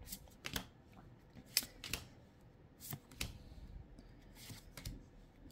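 Trading cards from a Magic: The Gathering deck being slid off the front of the stack and tucked behind, one at a time, giving a string of light card clicks and snaps, roughly in pairs about every second and a half.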